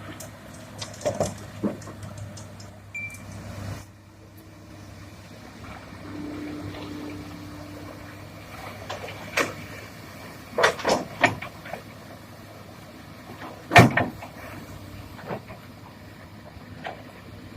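Komatsu PC200 hydraulic excavator's diesel engine running steadily while rock is loaded, with sharp bangs and clatters of stone and steel: a few about a second in, a cluster between about 9 and 11 seconds, and the loudest bang near 14 seconds.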